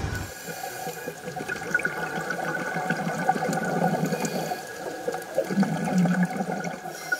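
Underwater sea sound on a reef: a steady, fluctuating watery haze with scattered small clicks and crackles, and a faint steady high tone underneath.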